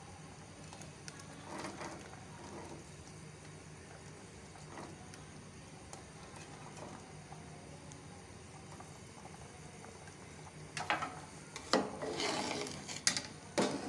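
Pot of broth on the boil, bubbling faintly and steadily. From about eleven seconds in, a metal spoon scrapes and clatters against the aluminium pot as it is stirred.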